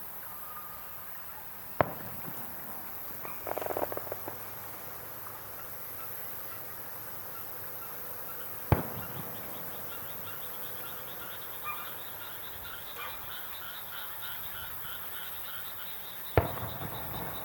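Three distant firework shells bursting, each a sharp boom that echoes briefly, about seven seconds apart, with a short crackle after the first. Frogs call in a rapid rhythmic series from about two-thirds of the way in.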